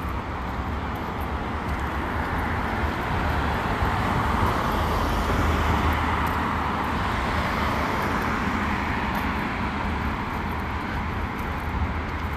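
Road traffic on a city street: a passing vehicle's tyre and engine noise swells over a few seconds and then fades, over a steady low rumble.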